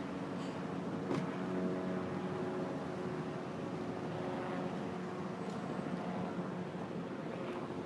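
Helicopter running steadily: a held whine of several tones over a broad hiss, with a brief click about a second in.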